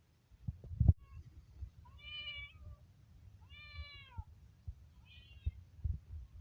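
Kitten meowing three times in short high-pitched mews, the last one briefly. Low thumps come before and after the meows, the loudest about a second in.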